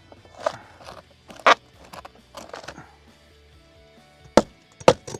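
A tool working at old roof-edge wood and flashing: a few crunching, scraping pries in the first three seconds, then sharp knocks from about four seconds in, over quiet background music.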